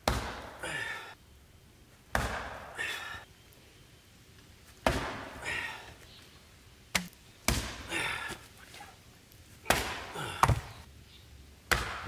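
Hatchet chopping down into the top of a standing log on a chopping block, splitting firewood: eight sharp blows about two seconds apart, two of them in quick succession in the middle, most followed by a softer sound about half a second later.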